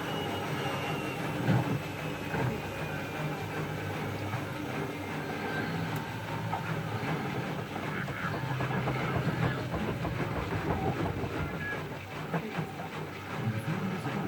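Siemens Extraklasse F1300A washing machine running, its drum turning with a steady rumble and clatter. A faint motor whine falls in pitch over the first few seconds.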